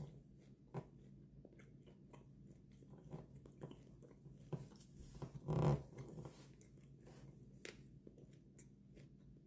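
A person chewing steak close to the microphone, with scattered small mouth clicks and smacks and one louder, brief low sound about five and a half seconds in.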